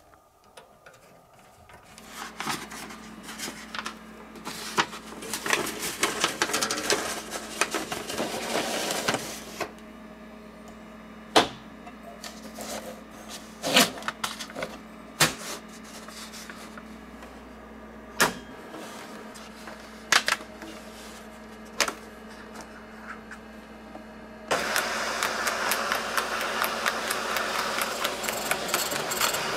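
Paper being handled and clicked into a Panasonic KX-P1080i 9-pin dot matrix printer, a run of sharp clicks and rattles. About 24 seconds in, the print head starts printing, a sudden, louder, fast continuous rattle.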